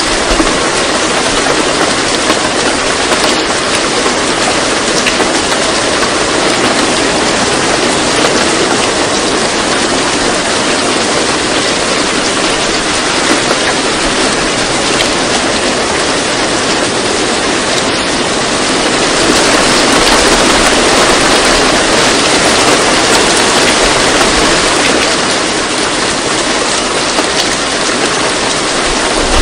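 Steady, loud rushing noise like heavy rain, the masking sound laid over a subliminal track; it swells slightly about two-thirds of the way through.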